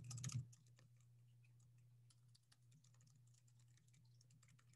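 Computer keyboard typing, a quick run of key clicks for the first half second, then only faint scattered clicks over a low steady hum.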